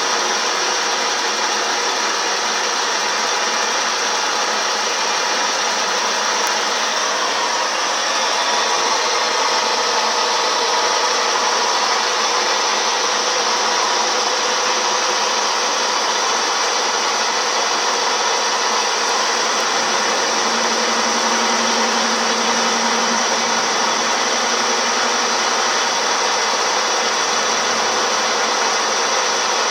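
CNC milling machine running steadily while turning a part. It makes a loud, even machine noise with no breaks, and a faint low hum comes in for a few seconds past the middle.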